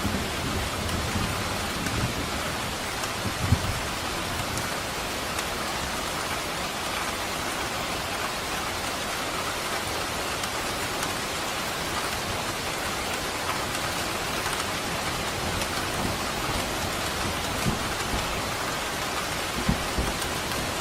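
Steady, dense rain falling, an even hiss throughout, with a low rumble near the start and a few brief low thumps, the sharpest about three and a half seconds in.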